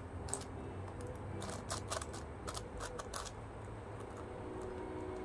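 A magnetic Diansheng Galaxy Gigaminx puzzle being turned by hand during a speedsolve: irregular plastic clicks and clacks as its layers are turned and snap into place.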